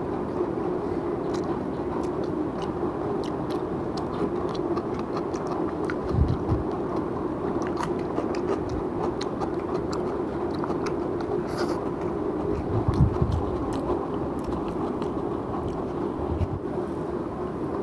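Close-up chewing and wet mouth clicks of a person eating biryani, over a steady low background hum, with a couple of dull low thumps.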